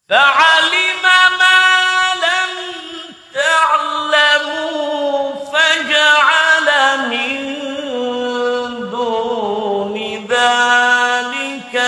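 Melodic Quran recitation: a single voice chants Arabic verses in long, held, ornamented phrases. There is a short breath pause about three seconds in.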